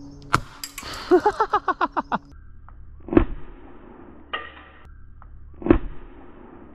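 Two airsoft grenade shells going off from handheld launcher pistols, about two and a half seconds apart: each a loud sharp pop of green gas followed by a short hiss as the load of BBs sprays out.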